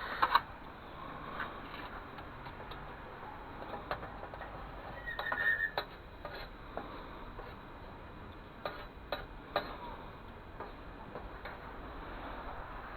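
Scattered light clicks and taps of small objects being handled, over a steady faint hiss, with a brief high squeak about five seconds in.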